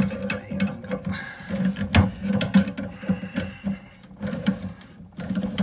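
Water pump pliers clicking and grating on the nut of a braided flexible tap connector and a chrome isolating valve as the nut is tightened, with one valve held by a second pair of grips. Irregular metal clicks, a sharper one about two seconds in.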